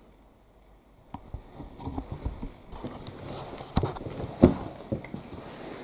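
A run of irregular taps and knocks with rustling, starting about a second in, with the loudest knock a little past the middle.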